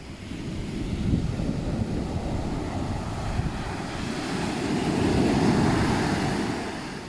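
Ocean surf breaking and washing up a sandy beach, one wave swelling to its loudest about five seconds in and then easing off, with wind buffeting the microphone.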